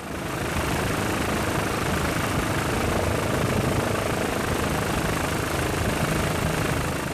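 Steady helicopter noise, the rotor and engine heard from aboard the aircraft doing the filming.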